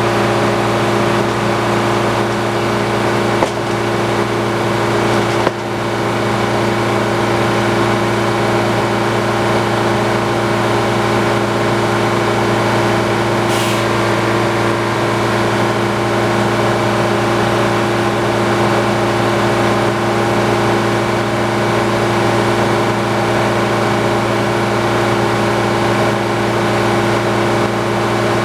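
Antique circular sawmill running steadily, with a constant mechanical hum at a fixed pitch. Two sharp knocks sound about three and a half and five and a half seconds in.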